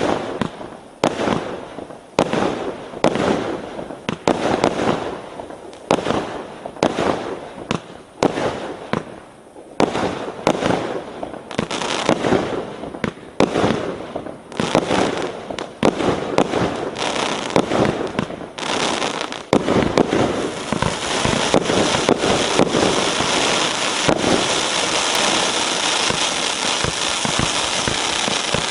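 A 1-inch multi-shot firework cake firing a rapid string of shots, each a sharp bang, about two a second. About eighteen seconds in it gives way to a dense, continuous crackling from crackling-star effects.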